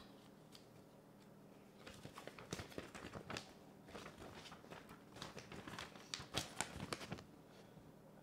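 Paper instruction manual being unfolded and handled: irregular rustling and crinkling from about two seconds in until about seven seconds.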